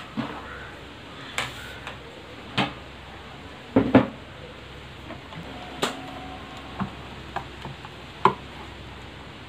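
Scattered short clicks and knocks of hand-handled parts on a plastic base board, about eight in all, the loudest a double knock about four seconds in, over a steady low hiss.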